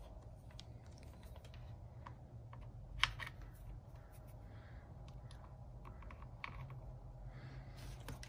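Faint scattered clicks and light knocks as multimeter test probes and their leads are handled and pushed into the discharge port of a 48 V e-bike battery, the sharpest click about three seconds in, over a low steady hum.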